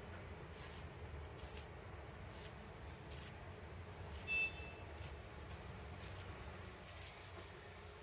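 A thin wooden stick flicking and tapping the leaves and stem of a small potted orange tree: faint scratchy rustles every half second or so, and one short high-pitched squeak-like note about four seconds in, over a steady low rumble.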